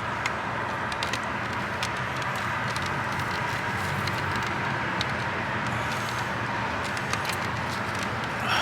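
Scattered light metallic clicks from pliers working a hose clamp onto a truck's heater hose, over a steady background hum and hiss.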